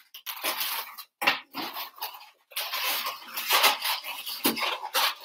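Latex modelling balloons of a twisted balloon figure rubbing and squeaking against each other and against hands as the figure is handled, in short irregular bursts.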